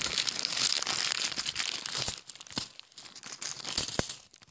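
Plastic bank bag of 50p coins being torn open and crinkled. The crackling is dense for about the first two seconds, then thins to scattered crackles and a few sharp clicks.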